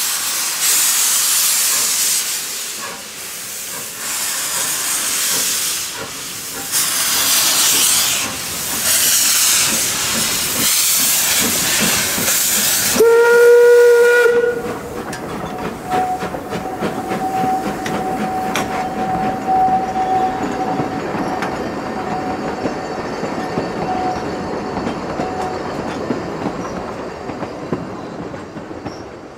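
Isle of Man Steam Railway tank locomotive letting off steam, a loud hiss coming in repeated bursts, then one whistle blast about 13 seconds in lasting about a second and a half. After the whistle the train runs along the rails with a steady rumble and rail-joint clicks.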